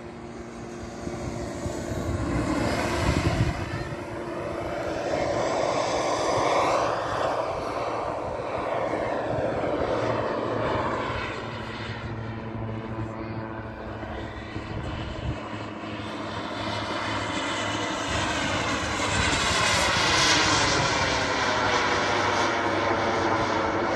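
Radio-controlled model BD-5 airplane flying passes overhead. Its engine note rises and falls in pitch and loudness with each pass, loudest about three seconds in and again near the end.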